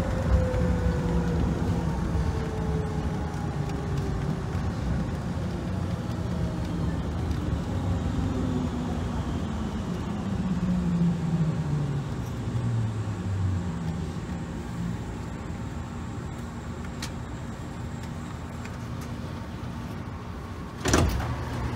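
Airport people-mover tram running and slowing to a stop, its motor whine falling in pitch as it brakes into the station, over a steady rumble. A sharp clunk near the end.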